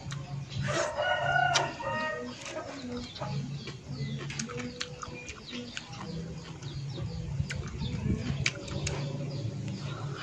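A rooster crows once, starting about a second in, over close-up crunching and mouth clicks from crisp lettuce being chewed, which carry on throughout.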